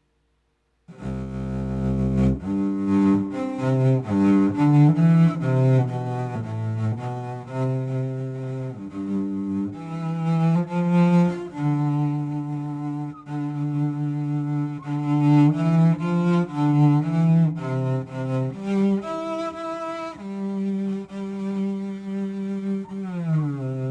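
A keyboard's solo bowed-string voice in a low, cello-like register, playing a slow melodic phrase with slides between notes. It starts about a second in, and near the end a note glides down in pitch.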